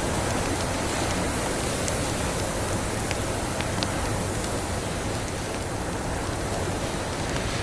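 Wood fire crackling in a fireplace: a few sharp snaps over a steady rushing hiss.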